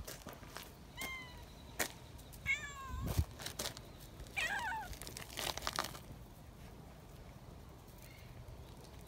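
Young cats meowing in short, shrill, falling calls: one about a second in, a quick run of several near the three-second mark, and a longer wavering call around four and a half seconds. Taps and rustling come between the calls.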